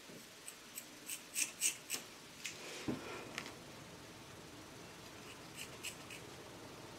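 Scissors snipping at the shoulder straps of a dress: a quick run of faint, short cuts in the first few seconds, then a few fainter snips near the end.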